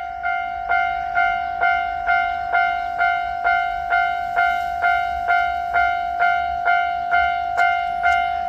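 Japanese railroad crossing alarm ringing its repeated 'kan-kan' ding, about two even strikes a second, each a clear bell-like tone that fades before the next.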